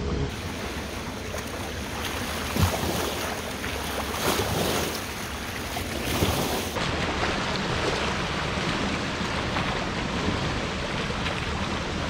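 Fast-flowing river water rushing and lapping against the bank rocks, a steady wash of noise with wind buffeting the microphone. A sharp thump stands out about two and a half seconds in.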